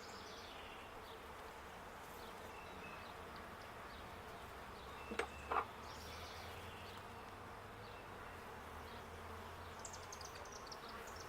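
Honeybees buzzing around an open hive, a faint steady hum. Two quick, sharp knocks sound about five seconds in.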